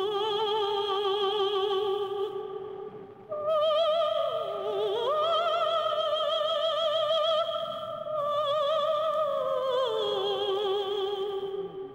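Soundtrack music: a solo voice singing long, slow notes with a wide vibrato, in three phrases. The second phrase begins about three seconds in, dips and then climbs higher, and the line sinks back down near the end.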